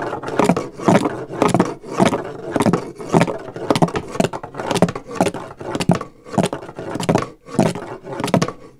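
White cane tip sweeping side to side across a large-plank wooden floor, scraping over the boards and knocking against them about twice a second.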